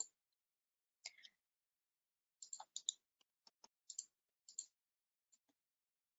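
Near silence broken by faint, irregular clicks, about a dozen short sharp ones, bunched together through the middle.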